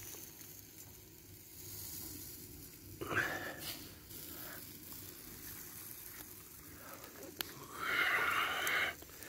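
A steak sizzling on a charcoal grill, a steady faint hiss. A short louder noise comes about three seconds in, and another lasting about a second comes near the end.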